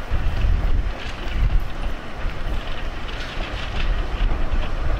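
Beyer, Peacock 2-4-0T steam tank locomotives moving slowly through a station, steam hissing and puffing in short repeated bursts, over heavy wind rumble on the microphone.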